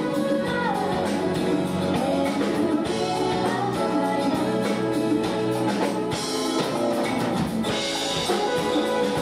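Live city pop band playing a song, with drums, bass, guitar, keyboards and percussion.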